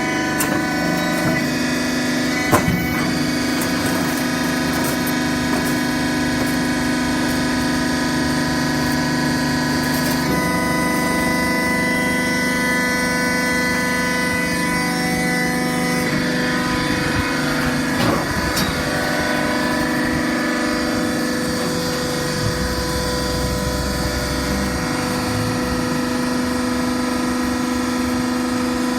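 Automatic horizontal cardboard baler running: the steady hum of its hydraulic pump, with a sharp knock about two and a half seconds in and another at about eighteen seconds.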